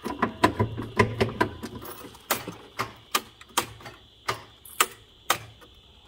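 A steady series of sharp electrical-sounding clicks, about two a second, over a faint steady high hiss, with a low rumble in the first second or two.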